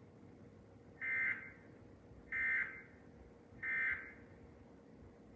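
Three short, raspy electronic data bursts, evenly spaced about 1.3 s apart: the Emergency Alert System end-of-message code that closes a broadcast tornado warning.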